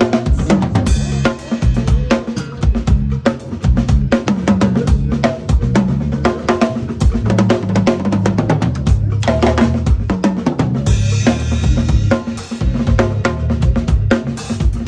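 Drum kit played continuously in busy, fast patterns, with bass drum and snare hits, rimshots, and cymbal crashes about a second in and again near the eleven-second mark.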